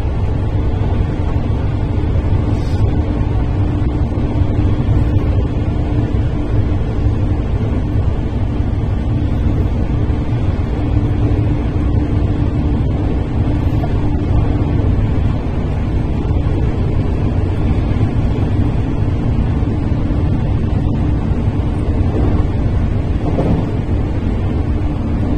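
Running noise of a JR 313 series electric train, heard from inside the front car: a steady low rumble of the wheels on the rails with a steady hum that fades in and out.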